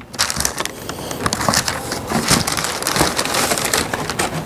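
Tissue wrapping paper rustling and crinkling in irregular crackles as a sneaker is unwrapped and lifted out of its shoebox.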